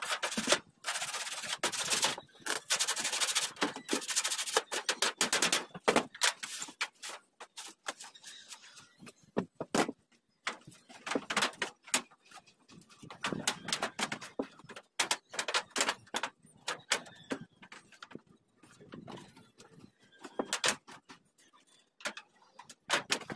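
Thin galvanized iron sheet being cut and folded by hand on a corrugated metal roof: metallic scraping, crinkling and clicks in irregular bursts. The sounds are dense for the first several seconds, then come as scattered clicks and scrapes.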